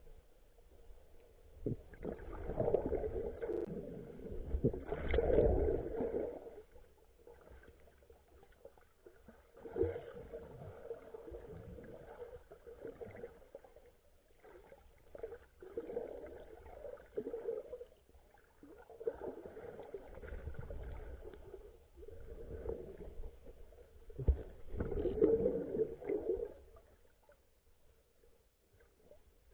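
Seawater sloshing and gurgling around a camera held underwater, in uneven surges, the loudest a few seconds in and again near the end.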